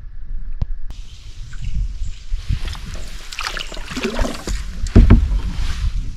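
Canoe paddling: water splashing and dripping off the paddle, with wind rumbling on the microphone and a low knock about five seconds in.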